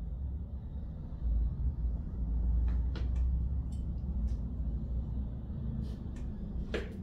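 A steady low rumble that gets a little louder about a second in, with scattered faint clicks and taps as a knife cuts the top off a lemon.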